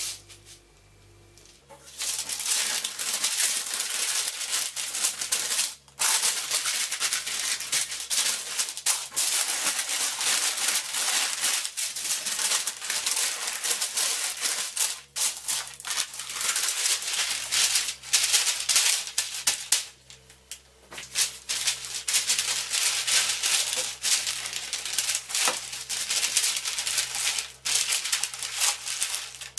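Parchment paper crinkling and rustling as hands fold it over a lump of mochi dough and press on it, with short pauses about six and twenty seconds in.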